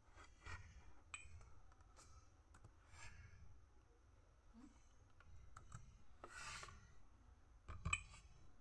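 Faint, scattered clicks and light rubbing from a laptop's keys and touchpad being pressed a few at a time, with one longer soft rustle about six and a half seconds in.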